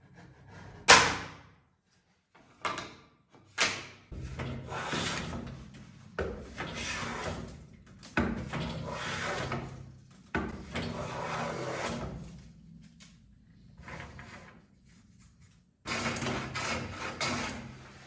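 Hand-tool woodworking on thin wood: a sharp knock about a second in and two lighter clicks, then a series of long scraping strokes of a hand tool on wood, each lasting about two seconds, with a quicker run of strokes near the end.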